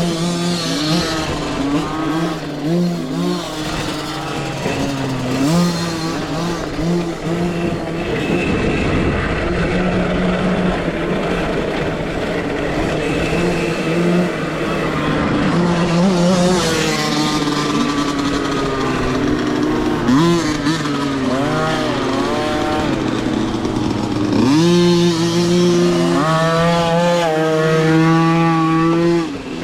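Small motocross bikes racing on a dirt track, their motors rising and falling in pitch with the throttle over and over. Near the end one bike holds a long, high run before the pitch drops off suddenly.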